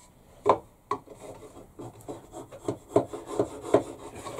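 Big flat-blade screwdriver used as a chisel, scraping and paring at wood in short strokes: two about half a second and a second in, then a quicker run of strokes in the second half.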